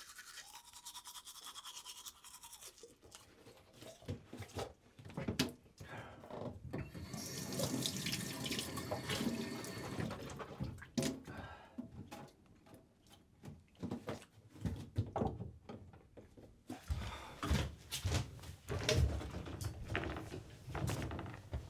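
Sounds of work at a small kitchen sink: tap water running for a few seconds in the middle, with scattered knocks and clinks of things being handled. Near the end come heavier thumps of bare feet climbing a ladder.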